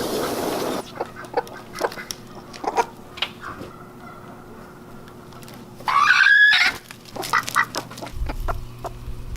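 Chickens clucking in short scattered calls, with one loud squawk about six seconds in. A short rush of noise opens it, and a faint steady hum runs beneath.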